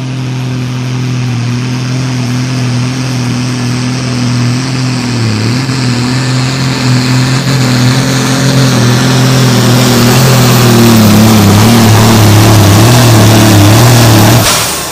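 Modified diesel pulling tractor running at full throttle while pulling the sled, growing steadily louder. Its engine note holds steady at first, then wavers and sags in pitch under the rising load before cutting off abruptly near the end.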